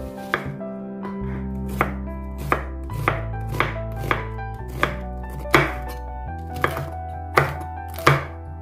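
Chef's knife slicing a red onion into strips and, near the end, a red chili on a bamboo cutting board: about a dozen unhurried, separate knocks of the blade on the wood. Background music runs underneath.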